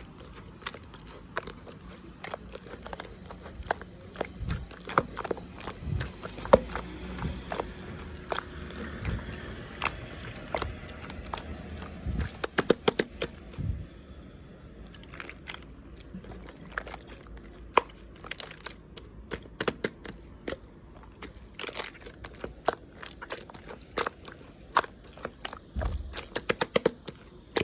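Clear slime being squeezed and pressed by hand, giving a dense, irregular run of sharp clicks and pops with a few dull thuds.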